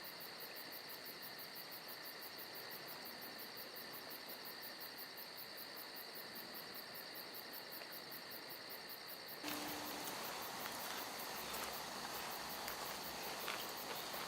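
Insects chirping in a steady, fast-pulsing chorus. About nine and a half seconds in, the sound cuts abruptly to a louder, noisier outdoor ambience with a short low tone.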